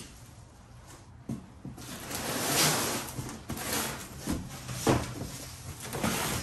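Cardboard shipping box being opened and handled: flaps pulled back and packing rustling from about two seconds in, with a few dull knocks.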